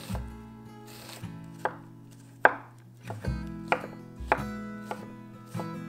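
Chef's knife chopping onion and then zucchini on a wooden cutting board: a run of uneven knocks of the blade on the board, the loudest about two and a half seconds in. Soft background music plays underneath.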